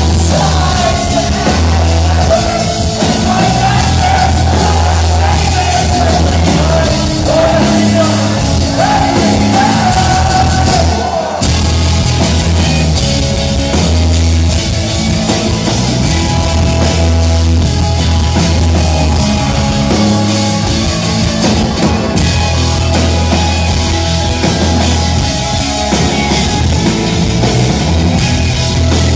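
Live rock band playing loudly: a lead voice singing over drums, bass and guitar, with a short break in the sound about eleven seconds in.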